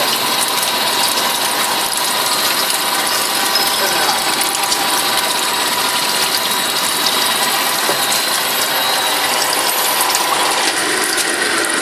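Sludge dewatering machine running: a steady wash of fast, fine ticking from its mechanism, mixed with filtrate water pouring out of its outlet pipe and splashing below.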